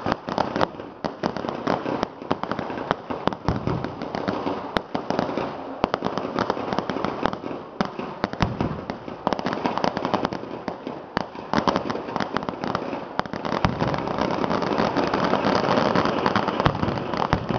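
Ground-level vedikkettu fireworks: a rapid, unbroken run of firecracker bangs and crackling, many cracks a second. It grows louder and denser in the last few seconds.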